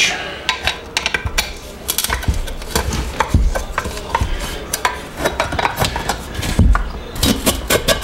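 Screwdriver clicking and scraping against the rear end-cover screws of a Hayward Super Pump motor's metal housing, with light metallic clinks throughout. Two dull knocks, one a few seconds in and one near the end, come as the motor is shifted.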